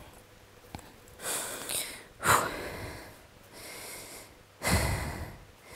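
A woman breathing hard, winded after skipping and kicks: about four heavy breaths, the loudest a little over two seconds in.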